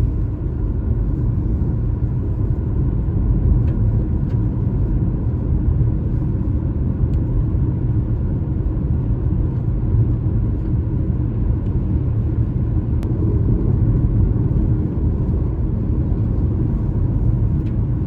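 Wind buffeting the microphone: a steady, loud low rumble with a few faint ticks.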